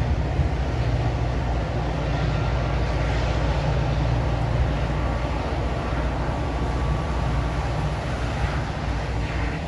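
Diesel engine of a Metra F40PH locomotive running under load as the commuter train departs, a steady low rumble with the noise of the moving train.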